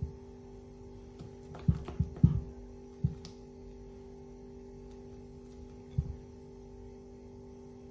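Silicone-coated whisk working thick chocolate batter in a glass mixing bowl, giving dull knocks: a quick run of three about two seconds in, then single knocks about three and six seconds in. A steady low hum runs underneath.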